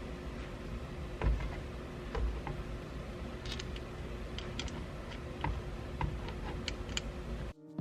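Scattered light clicks and taps of screws and hand tools being handled while a steering wheel is fitted onto its quick-release hub, with one louder knock about a second in. The sound cuts off abruptly just before the end.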